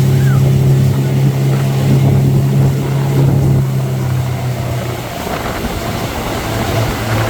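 Motorboat engine running at a steady pitch, then easing off about five seconds in, leaving the rush of wind and water.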